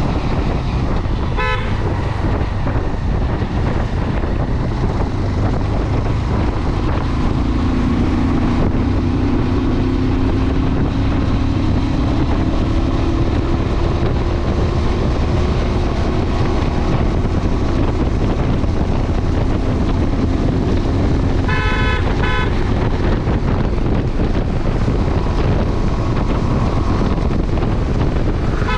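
Motorcycle riding through city traffic: a steady engine and road rumble with wind on the microphone, and a steady pitched drone that slowly rises through the middle. Vehicle horns honk briefly about a second and a half in and again around 22 seconds in.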